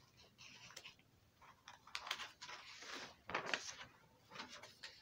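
Faint handling noise from the paper drawing being held: soft rustles and light clicks at irregular moments.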